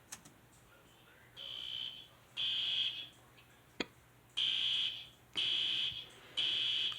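Fire alarm sounder going off after the pull station is activated. It beeps in high-pitched tones about half a second long, two and then, after a pause, three in a row, with sharp clicks at the start and about four seconds in.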